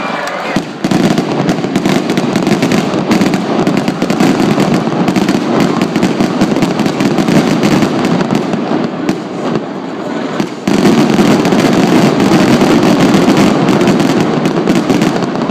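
Aerial fireworks going off in a rapid, continuous barrage of bangs and crackles, with a short lull about two-thirds of the way through before it picks up again at full strength.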